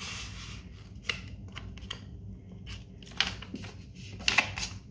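A sheet of paper rustling and being creased as it is folded and pressed flat by hand, in several short swishes and scrapes, the loudest cluster near the end.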